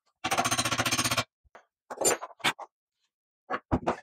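Ratcheting wrench clicking rapidly for about a second as a bolt is run in, followed by a few separate knocks and clinks of metal tools and hardware.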